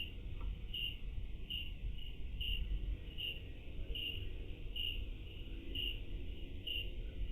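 A cricket chirping in a steady rhythm, about one chirp a second, over a low steady rumble.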